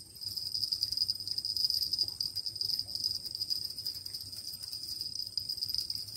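Steady, high-pitched insect chorus: one unbroken buzzing tone with fainter higher overtones.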